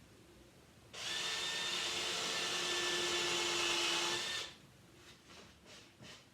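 Electric power-tool motor starting suddenly about a second in, running steadily for about three and a half seconds, then switching off, followed by a few faint taps.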